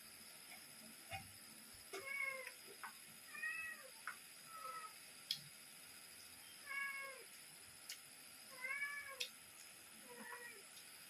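A cat meowing, about six short rising-and-falling meows spread over several seconds, with a few sharp clicks between them.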